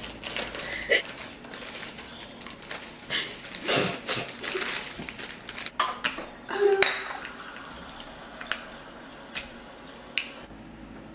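Scattered clinks and knocks of kitchen dishes and utensils being handled, with a few brief, quiet vocal sounds.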